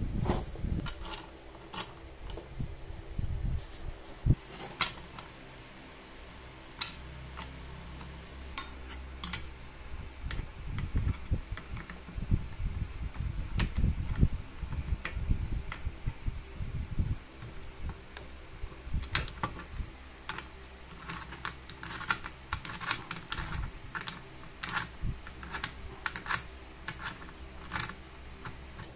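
Scattered metallic clicks and taps from handling the steel parts of an angle grinder cutting stand and turning its clamp screw with a screwdriver, over a low rumble of handling. The clicks come thicker and faster in the last ten seconds or so.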